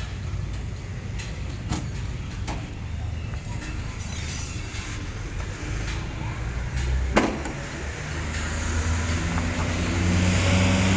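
Nissan Sentra's engine running, with a few light clicks and one sharp click about seven seconds in, after which the engine grows louder toward the end.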